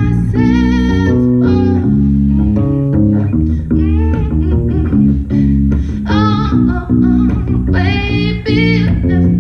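Live band song: a woman sings into a microphone in short phrases over electric guitar and bass.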